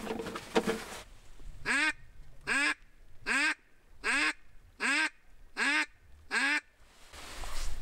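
Duck quacking: eight short quacks at an even pace, about three-quarters of a second apart, all at the same loudness.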